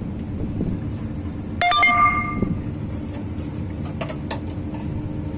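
A steady low hum of a running engine. About a second and a half in, a sharp metallic clink rings briefly, and a few lighter clicks follow around four seconds in.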